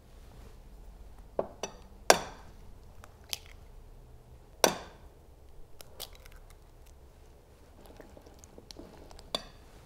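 Eggs being cracked against a bowl and added to the batter: a scatter of sharp knocks and taps, the loudest about two seconds in and just under five seconds in.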